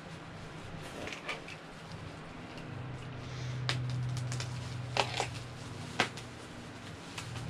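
Plastic bubble wrap rustling and crackling as a boxed Funko Pop figure is unwrapped by hand, with scattered sharp crackles, the two loudest about five and six seconds in. A low hum sounds for a couple of seconds in the middle.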